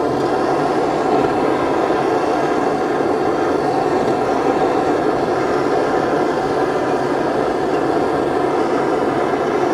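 Blowtorch flame running steadily with an even roar, heating a steel change gear to expand its bore.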